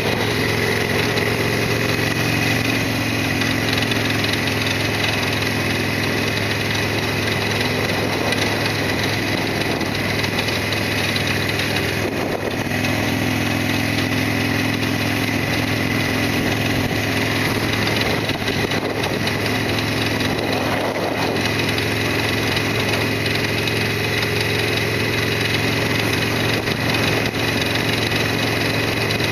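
Harley-Davidson Sportster XL1200R's air-cooled V-twin engine running steadily, at an even pitch and level.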